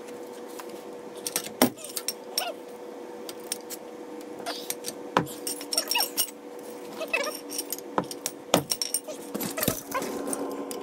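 Irregular metallic clicks and clinks of a socket wrench working 18 mm bolts loose at a truck's front wheel hub, over a steady hum.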